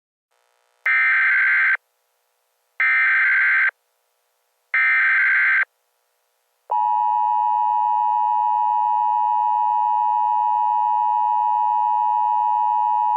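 Emergency Alert System broadcast tones: three bursts of the screeching SAME digital header, each about a second long, followed from about 7 s in by the steady two-tone EAS attention signal, held unbroken to the end.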